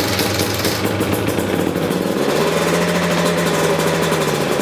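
2019 KTM 250 EXC TPI single-cylinder two-stroke engine running at steady throttle, sounding as a healthy TPI should, smooth and even. About two seconds in the revs step up a little and hold steady.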